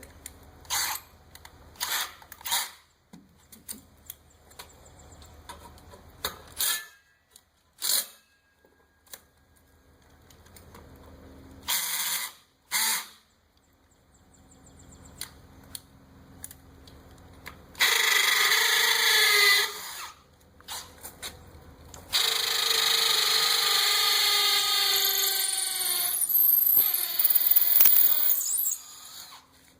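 Power drill with a 3/8-inch bit pre-drilling mounting holes: two runs of the drill, a short one of about two seconds and then a longer one of about seven seconds. Before them come a series of separate clicks and knocks.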